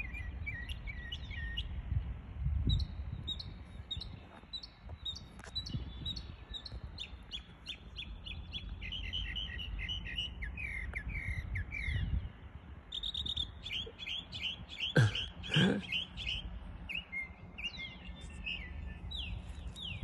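Northern mockingbird singing from a perch: a long run of varied phrases, each a quick series of repeated chirps or trilled notes, switching to a new sound type every few seconds, the mimicked calls of other birds.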